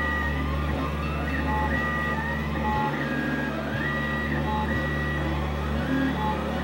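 Stepper motors of a 3D printer singing as the print head moves during a print: steady tones that jump to a new pitch every second or so, with short rising and falling pitch glides as the head speeds up and slows down.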